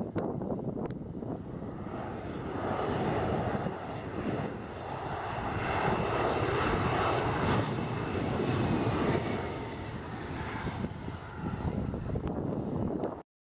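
Bombardier CRJ900 regional jet's two rear-mounted turbofan engines at high power as it rolls down the runway, a dense jet noise with a steady high whine that swells about two seconds in and eases somewhat later on. The sound cuts off abruptly just before the end.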